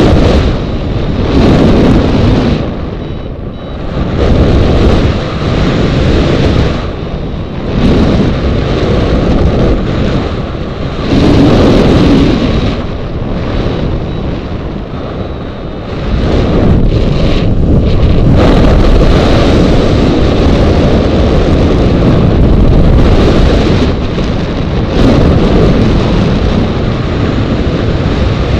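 Airflow buffeting the microphone of a camera on a hang glider in flight: a loud, rushing wind noise that swells and drops every second or two.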